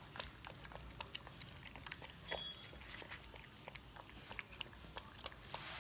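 A 45-day-old puppy eating Pedigree puppy food softened in water from a plastic bowl: faint, irregular chewing clicks, several a second.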